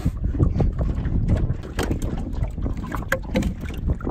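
Wind buffeting the microphone aboard a small boat on open water, with scattered short knocks.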